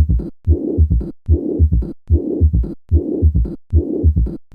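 Auscultation recording of severe mitral regurgitation: a loud, rough murmur fills each beat, with low heart-sound thumps, a third heart sound and a short diastolic flow murmur. The beats repeat regularly, a little faster than one a second.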